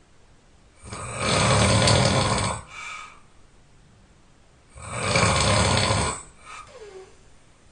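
A person snoring loudly: two long snores about four seconds apart, each followed by a short, softer breath.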